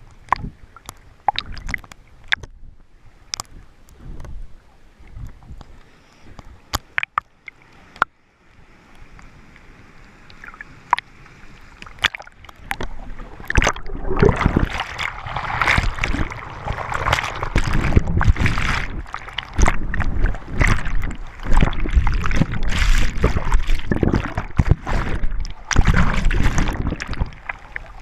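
Seawater surging into a rocky coastal gully blowhole and churning. Sharp splashes and knocks sound over a quieter wash at first. Then from about twelve seconds in, a wave floods in and the water rushes and sloshes loudly, in repeated surges.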